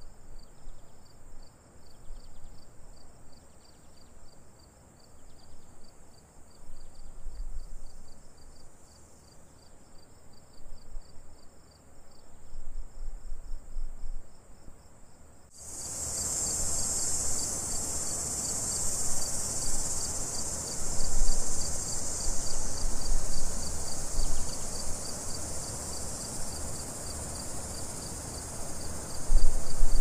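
Crickets chirping in a steady, even pulse, about five pulses a second, with a higher continuous insect hum above. About halfway through, the background suddenly becomes louder and hissier, with scattered low rumbles.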